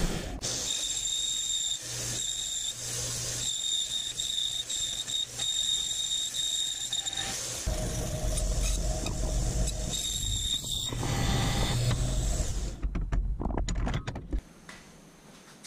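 A power tool cutting 6061 aluminium plate: a high, steady squeal that comes and goes over a low motor hum. The machine stops about a second before the end.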